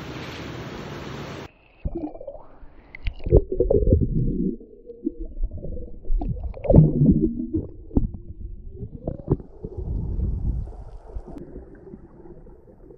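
Steady rush of river water for about a second and a half, cutting off suddenly. Then muffled sound from a camera under the river: gurgling, bubbling, irregular knocks and low rumbling.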